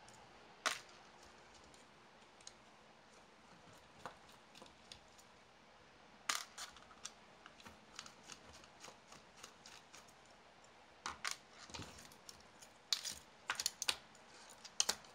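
Irregular light clicks and taps of small plastic and metal parts being handled and pulled apart while a 1/28-scale RC car chassis is taken apart with a screwdriver, coming more often in the second half.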